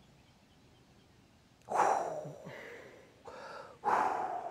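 Near silence, then three short bursts of rushing air noise, the first about two seconds in and two more near the end, like huffed breaths or gusts across the microphone.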